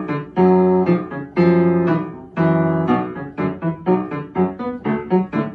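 Piano music: a run of quick notes broken by a few held chords.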